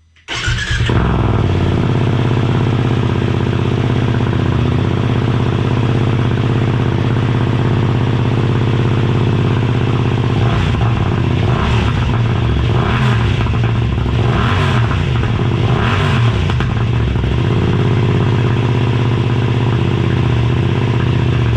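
BMW F900R's parallel-twin engine running through a SpeedPro Cobra SPX slip-on exhaust with the dB killer fitted. It comes in suddenly just after the start and idles steadily, then the throttle is blipped several times in the second half before returning to idle.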